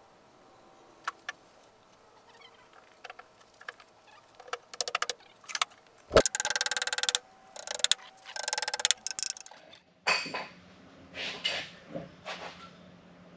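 Workshop handling noise as wooden table-base parts are fitted together: scattered clicks, then stretches of dense clattering and rattling, with one sharp wooden knock about six seconds in. Near the end come a few short scraping bursts.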